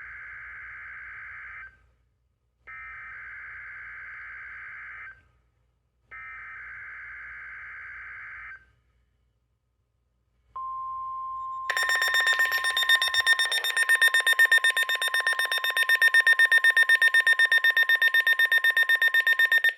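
NOAA Weather Radio weekly test signal. It opens with three bursts of harsh, buzzing SAME digital header data with short pauses between them, then a steady 1050 Hz warning alarm tone. About a second after the tone begins, a weather radio receiver's own alarm is set off by it and sounds a loud, rapidly pulsing beep over the tone. Both cut off together.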